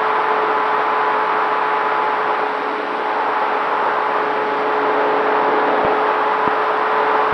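Onboard audio of a Dynam T-28 Trojan RC plane in flight: its electric motor and propeller whine steadily over rushing air noise, easing off slightly about three seconds in and picking up again.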